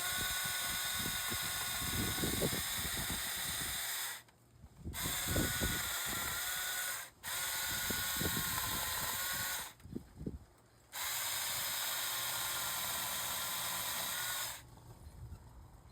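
Battery-powered mini chainsaw running in four bursts of a few seconds each with brief pauses between, a high electric motor whine over the chain's hiss, cutting small branches.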